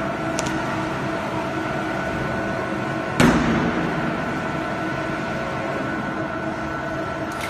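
Magnesium oxide board production line machinery running with a steady hum carrying several fixed tones. A single loud bang about three seconds in is the loudest sound.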